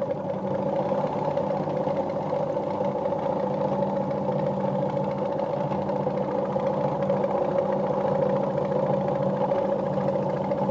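Jones sewing machine running steadily on its electric motor, needle bar driving through fabric as it stitches a decorative stitch at a short stitch length.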